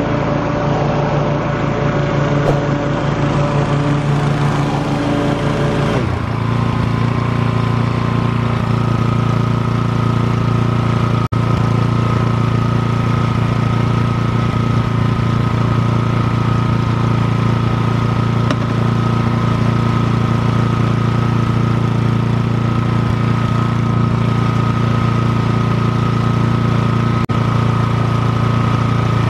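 Briggs & Stratton engine of a Toro TimeMaster 30-inch walk-behind gas lawn mower running steadily. Its sound changes about six seconds in, then holds even.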